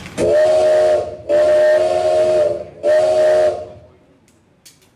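Steam locomotive whistle sound effect: three loud blasts, the middle one the longest, each a chord of several steady tones with a hiss of steam.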